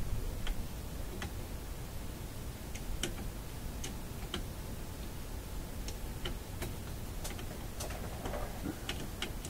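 Small, irregular clicks and taps of hand tools working against the wiring and metal chassis of a vintage tube radio while a volume control is worked loose, about one or two clicks a second.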